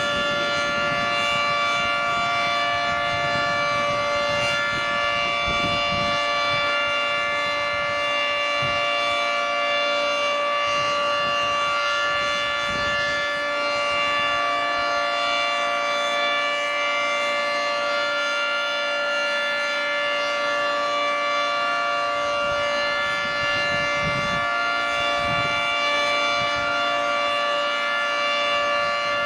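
Federal Signal 3T22 three-tone outdoor warning siren sounding the steady Alert signal: a loud, unwavering chord of several tones with no rise or fall in pitch.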